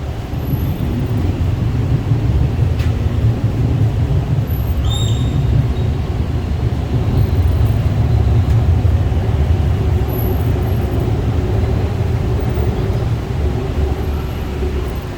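Heavy low rumble of passing vehicles that swells about two seconds in and eases near the end, with a brief high squeal about five seconds in.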